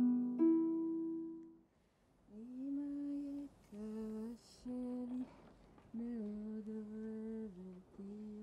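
Two final notes on a plucked string instrument ring out and fade. After a brief silence, a voice hums a slow, unaccompanied tune in several held phrases.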